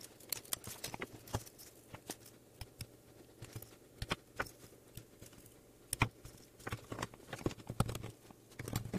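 Irregular light clicks and snaps as jumper wires are pulled off a ribbon cable and cut with small flush cutters; the loudest come about four and six seconds in.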